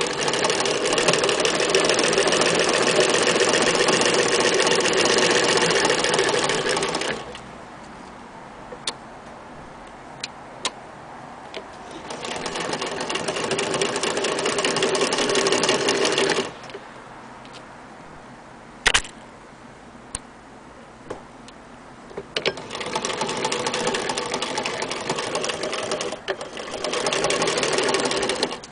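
Semi-industrial Singer sewing machine stitching through fabric in three runs of about seven, four and six seconds. Between runs it stops, with small clicks and one sharp knock in the pauses.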